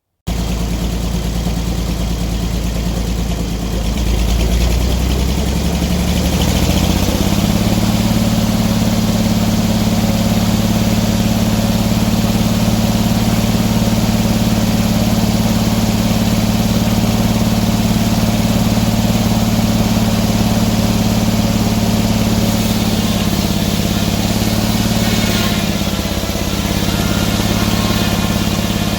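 Sawmill engine running: it idles, then revs up over a few seconds to a steady high speed, dipping briefly near the end.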